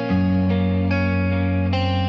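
Instrumental music: a guitar picks slow single notes over a held low bass note.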